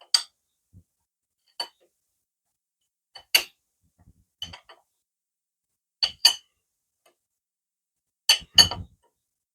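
Sharp metallic clinks of hand tools on motorcycle steering-stem hardware, single and in close pairs, a second or two apart.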